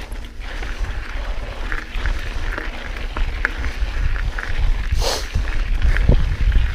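Mountain bike being ridden along a dirt trail: heavy wind buffeting on the microphone, with tyres on rocky ground and the bike rattling in scattered clicks. A brief rushing noise comes about five seconds in.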